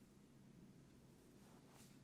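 Near silence: room tone with a faint steady low hum, and one soft brief swish near the end.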